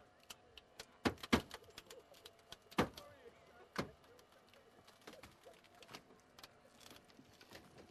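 Sharp metallic knocks and clicks of car-body work during a roof removal with hydraulic rescue tools, four louder strikes in the first four seconds and lighter clicks after, over a faint steady hum.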